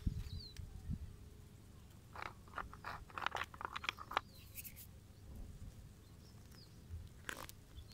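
Scattered light clicks and scrapes, bunched in a quick cluster a few seconds in and again near the end, over a faint low rumble, with a few faint high chirps.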